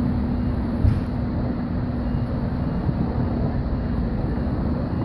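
Fire engine's diesel engine running at low speed as the rig reverses, a steady low rumble with a hum under it. A brief thump about a second in.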